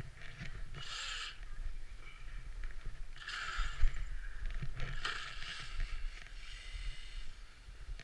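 Axial Yeti Score RC trophy truck's electric motor whining in several short bursts of throttle as it drives through snow, over a low rumble of wind and handling on the microphone.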